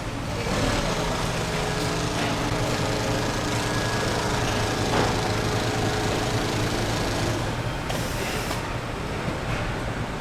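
Factory machinery running with a steady hum, a few light clicks, and a short hiss about eight seconds in.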